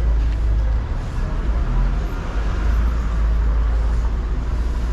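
Street traffic: a motor vehicle's deep, steady engine rumble with road noise, the noise swelling a little near the middle as it passes.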